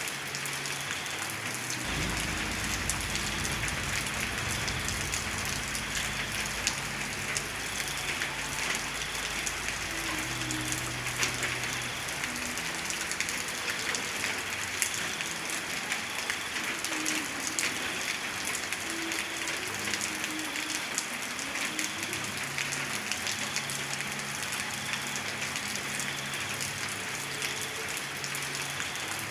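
Steady rain falling, an even hiss dotted with many separate drop hits. A low rumble runs underneath through the first part and fades out.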